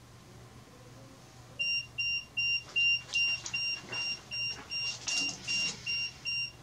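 Handheld electronic meter beeping, a fast even run of short high-pitched beeps, two to three a second, starting about a second and a half in. It is set off by the furnace it is held next to, which the investigators then call a false alarm.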